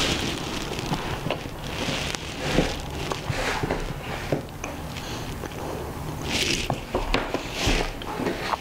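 People chewing crumbly Turkish halva, with small clicks, crackles and brief hissy mouth and handling noises scattered through.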